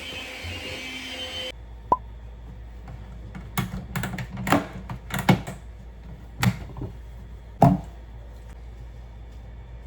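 A steady appliance motor hum stops about a second and a half in, followed by scattered knocks and clatter of things being handled and set down, about a dozen sharp knocks.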